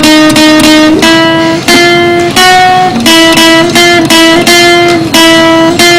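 Guitar playing held notes that are chopped into short pieces, each one cutting off abruptly and restarting about two to three times a second, with the pitch shifting a few times.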